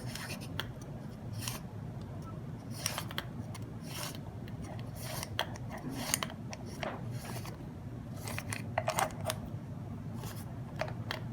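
Light metal clicks and scraping at irregular intervals as a Sturmey-Archer S40 internal gear assembly is turned by hand and threaded into the hub shell, with a small cluster of clicks near the end.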